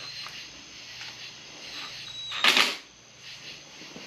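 Small clicks of tools and engine parts being handled, with one short, loud clatter about two and a half seconds in.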